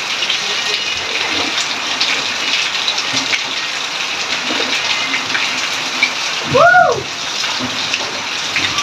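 Steady rain and running water splashing into washtubs as laundry is scrubbed and sloshed by hand, a garden hose filling a basin. About six and a half seconds in, a short pitched call rises and falls once, louder than the water.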